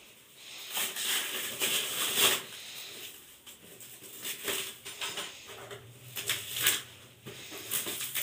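Plastic stretch wrap on a cardboard box crinkling and rustling as fingers pick and tear at it, in irregular scratchy bursts.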